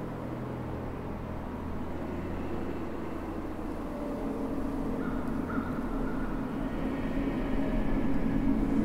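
A low, steady rumbling drone with held humming tones, slowly swelling louder.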